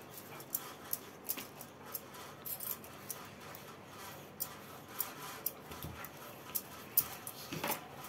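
A hand smearing thick wet paste over stacked taro leaves in a plastic tray: faint squelching and rubbing with many small, irregular clicks.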